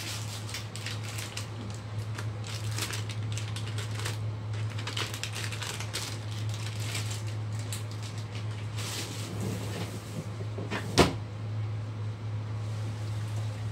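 Kitchen handling sounds: light clicks and knocks of things being moved, with one sharp knock about eleven seconds in, over a steady low hum.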